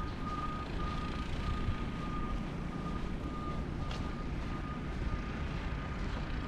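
A vehicle's reversing alarm beeping over and over on one steady tone, fading in the second half, with a low rumble beneath.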